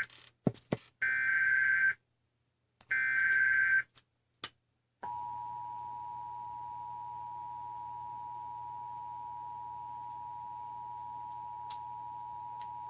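Emergency Alert System tones: two one-second screeching bursts of the digital SAME header data with a few clicks between them, then after a short gap the EAS two-tone attention signal, two steady tones sounded together for about eight seconds, announcing a Child Abduction Emergency (Amber Alert).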